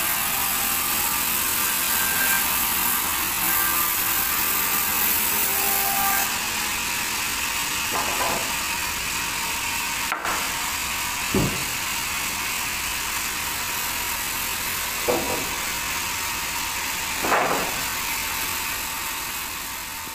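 Large band sawmill running with a steady whirring hiss, with about five brief knocks spread through it. The sound fades away at the end.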